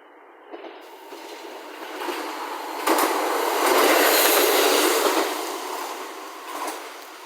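A train passing close by: its rushing noise builds, jumps up suddenly about three seconds in, stays loudest for a couple of seconds, then fades away.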